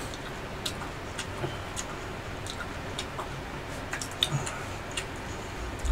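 Mukbang eating sounds: scattered light clicks and smacks of chewing braised chicken, with occasional small utensil clicks, a few each second.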